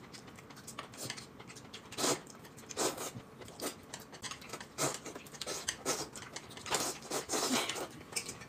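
A man eating mixed noodles with chopsticks: irregular slurps and wet chewing smacks at the mouth.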